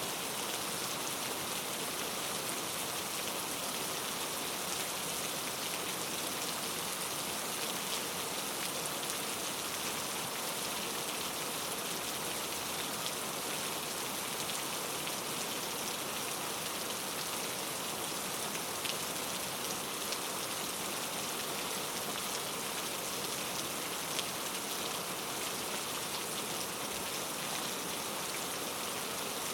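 Steady rain falling, an even hiss of drops with scattered single drops ticking now and then.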